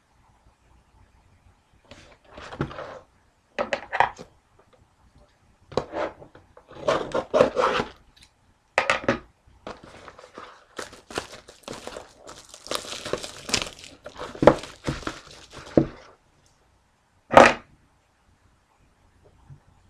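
A sealed trading-card box being unwrapped and opened: plastic wrap crinkling and tearing, with scattered knocks of cardboard being handled, and one sharp knock near the end.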